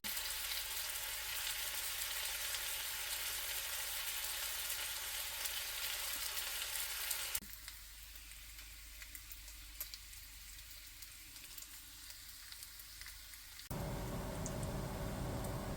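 Bacon frying in a pan, a steady sizzle with small pops. About seven seconds in it drops abruptly to a quieter sizzle with scattered crackles. Near the end a louder sizzle returns with a steady low hum under it.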